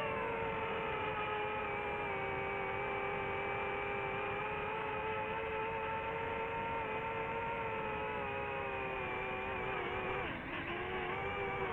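DJI FPV drone's motors and propellers whining at a steady pitch in flight. The pitch sags and dips sharply about ten and a half seconds in, then rises again.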